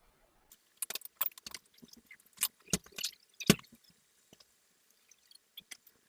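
Irregular metallic clicks and clinks with a few heavier knocks, as loose permanent magnets are worked free of an e-bike hub motor's rotor. The magnets sat in the rotor with no adhesive holding them.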